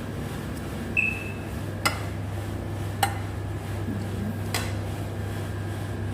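A serving utensil clinking and knocking against a dish, four sharp clinks spread over a few seconds, the first ringing briefly. A steady low hum runs underneath.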